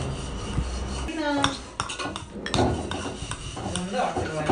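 Metal spoons clinking and scraping against bowls while eating, a scatter of short sharp clicks.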